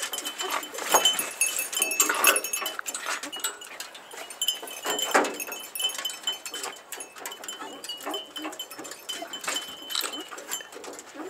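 Beagles in a truck's dog box whining and yelping in short scattered cries, with light metallic jingling.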